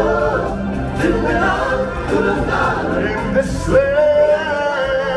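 A man singing through a microphone over amplified backing music, holding one long note near the end.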